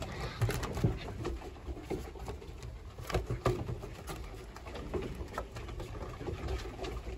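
German Shepherd–Husky mix puppies playing on a wooden deck: claws and paws pattering and scuffling on the boards in many quick taps, with soft low growls and grumbles as they wrestle.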